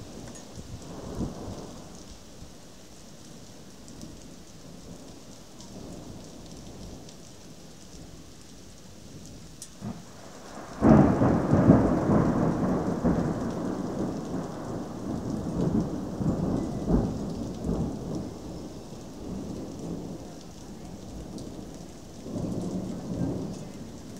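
Thunderstorm: steady rain hissing, then a sudden loud thunderclap about eleven seconds in that rolls on as rumbling thunder for several seconds, fading slowly, with a smaller rumble near the end.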